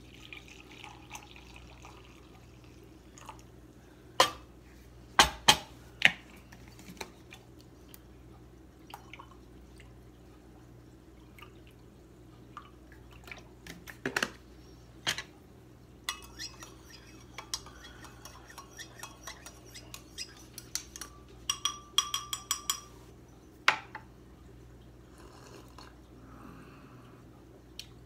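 Coffee pouring from a glass carafe into a ceramic mug, then a few sharp knocks as the carafe and other things are set down on the counter. In the second half a metal spoon clinks rapidly against the ceramic mug, ringing, as the coffee is stirred.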